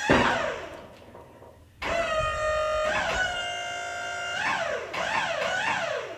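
Guitar music: held notes that slide down in pitch, with a short pause about a second in.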